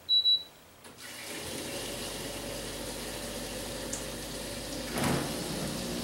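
Hisense portable air conditioner switched on: two short high beeps, then its fan starts up with a steady rush of air. About five seconds in there is a thump, after which a low hum joins the airflow.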